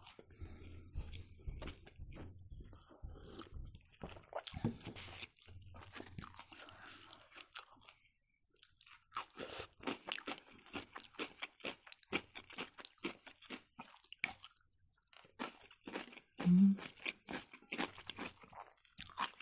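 Close-up chewing of food with crunchy bites and wet mouth clicks, growing into a dense run of quick clicks about halfway through. A short hum comes near the end.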